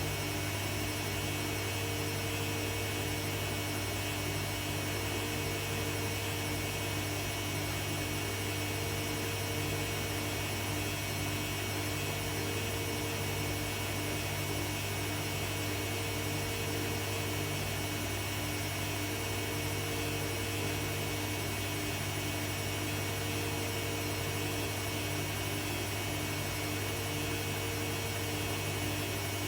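Arçelik 3650 SJ washing machine on its spin cycle with a quilt in the drum, running at a steady speed with an even hum and whine.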